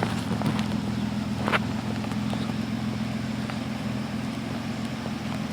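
A four-wheel-drive vehicle's engine running steadily, heard from inside the cab, with a few light clicks and knocks, one standing out about a second and a half in.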